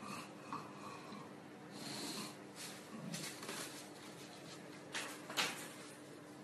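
Faint noises of an English bulldog puppy and an adult bulldog playing, with scattered scuffling and one sharp tap a little after five seconds in.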